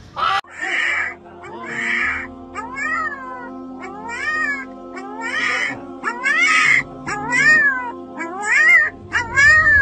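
Cat meowing over and over, each call rising then falling in pitch, about one a second, over a steady drone of background music.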